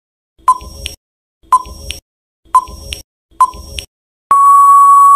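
Quiz countdown-timer sound effect: short electronic beeps about once a second, four times, then a long steady beep about four seconds in as the countdown runs out.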